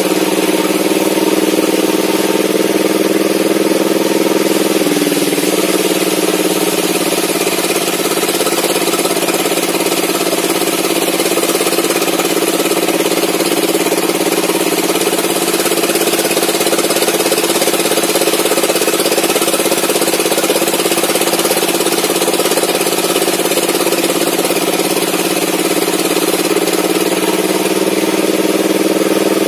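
Homemade table saw ripping a long slab of old mahogany, its power unit running steadily under the cut. The pitch dips briefly about five seconds in.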